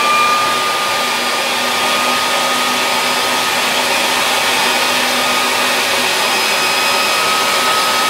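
Handheld leaf blower running steadily at full power: a loud rush of air with a steady high motor whine.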